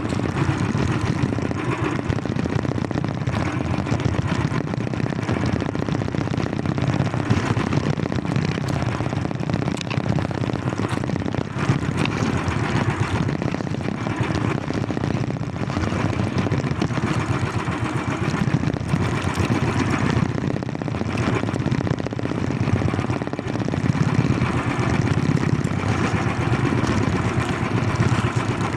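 A motor engine running steadily at an even speed.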